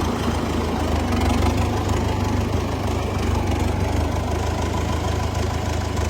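Sonalika RX 60 tractor's diesel engine running steadily with a low, even rumble.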